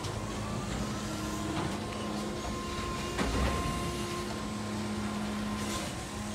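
Electric Mack LR side-loader garbage truck with a New Way Sidewinder body running, giving a steady electric whine and hum with no engine note. A low thud comes about three seconds in.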